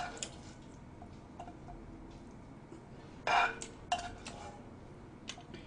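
Chopsticks clicking against a frying pan and a bowl as stir-fried noodles are lifted and served: a few scattered light clinks, with one longer, louder noise a little over three seconds in.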